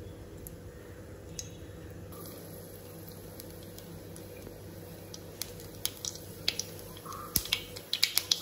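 Mustard seeds beginning to pop in hot oil as the oil reaches tempering heat. A few scattered sharp pops at first, growing more frequent and louder over the last three seconds.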